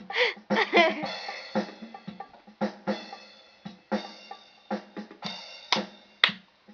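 Electronic keyboard's built-in drum and sound-effect voices played as a quick, uneven run of drum hits, with some ringing electronic tones between them. There is a warbling effect sound near the start.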